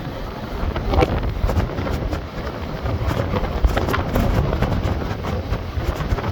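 Hurricane-force wind buffeting the microphone: a loud, heavy low rumble with many short knocks from gusts.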